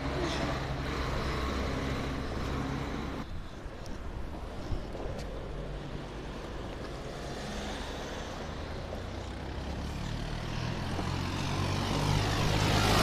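Longboard wheels rolling over pavement: a steady low rumble that grows louder near the end.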